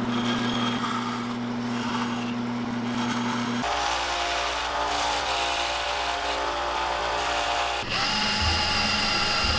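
Shop power tools running one after another with hard cuts between them: a bandsaw running steadily, then from about four seconds in a small machine with a different, higher-pitched note, likely a disc sander, and near the end a cordless drill spinning up.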